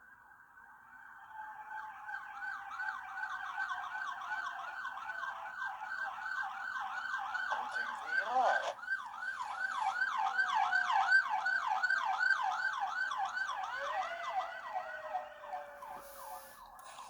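Electronic siren of an emergency vehicle: a wail that switches to a fast yelp of about three cycles a second a second or so in, then back to a wail near the end, the pitch sliding slowly lower as it goes. A brief lower falling tone cuts in about halfway.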